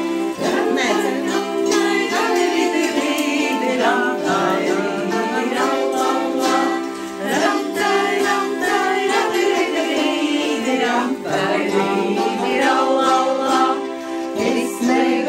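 A group of women singing a Latvian folk song to the kokle, a plucked Latvian zither. The strings ring steadily under the sung melody.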